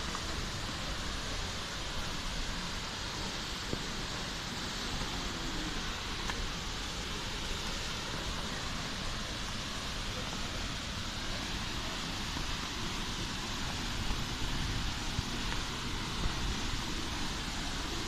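Steady rush of the Misol-Ha waterfall falling into its plunge pool.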